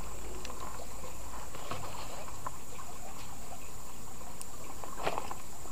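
Outdoor waterside ambience: a steady high thin drone with faint scattered clicks and small splashes of water as a baitcasting reel is worked and a lure is retrieved.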